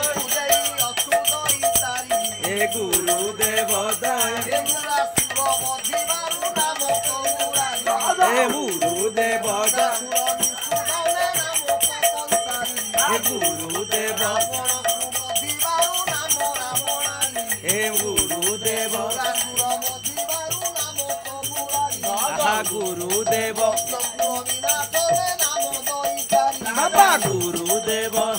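Devotional group singing (kirtan) of rising and falling sung lines over a steady rhythm of a khol barrel drum and small brass hand cymbals (kartal) clashing and jingling continuously.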